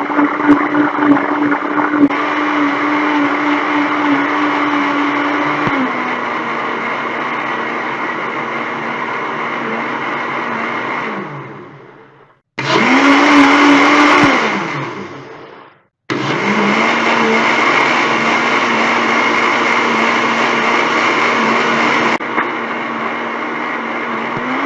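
Electric kitchen blender running, its motor whine dropping slightly in pitch about six seconds in. Near the middle it is switched off and winds down, gives one short pulse that also winds down, then starts again and runs steadily.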